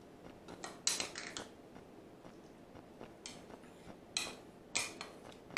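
A spoon scraping and knocking against a bowl as sweet corn is spooned out onto a baking tray: a few short scrapes about a second in, and several more over the last two seconds.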